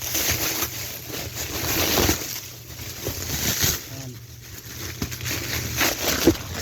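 Plastic bubble wrap rustling and crinkling in irregular waves as it is pulled off and unwrapped from a packed item, with a sharp click near the end.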